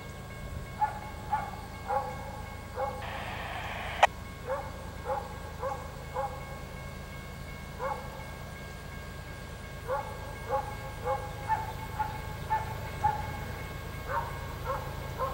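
A dog barking over and over in runs of several barks about half a second apart, over a low steady rumble. There is one sharp click about four seconds in.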